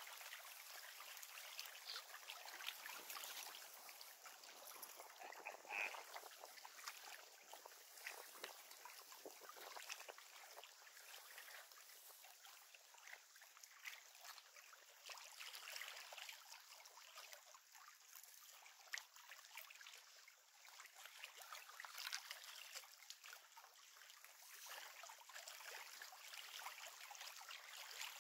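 Faint, steady trickling and lapping of lake water at the shore, with scattered small ticks.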